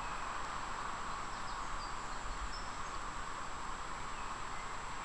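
Outdoor riverbank ambience: a steady rushing hiss with a few faint bird chirps about a second and a half to two and a half seconds in.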